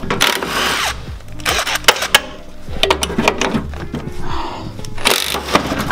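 Hand tools and loose parts clicking, clanking and rattling as wiring is cut and pulled out of a car's stripped engine bay, with two short rushes of noise, one near the start and one near the end.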